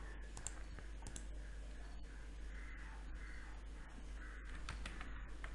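Faint room noise and low steady hum, with a few soft computer mouse clicks scattered through.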